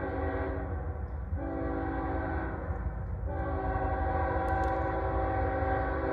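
Locomotive air horn sounding a steady chord in blasts, breaking off briefly twice and then holding a long blast, over a low rumble.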